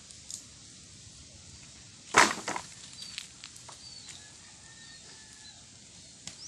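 Open wood fire crackling around bamboo tubes of cooking rice cake, with scattered small pops and one loud sharp crack about two seconds in, followed closely by a smaller one.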